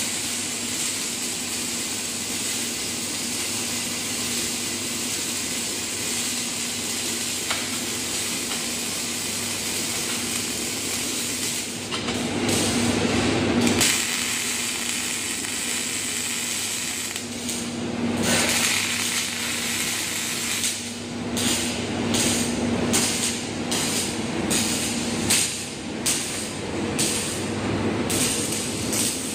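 Wire-fed robotic arc welding: the arc hisses and crackles steadily over a low hum from the welding cell. In the last third it breaks into short irregular cracks and knocks, as welds stop and start.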